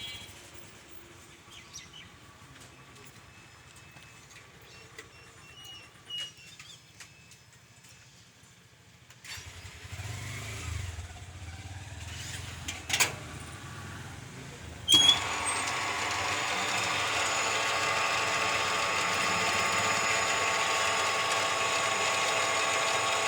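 Electric pump motor of a petrol-pump fuel dispenser switching on abruptly about two-thirds of the way in, then running with a steady whine. Before that a low hum starts, and a sharp click comes shortly before the motor starts.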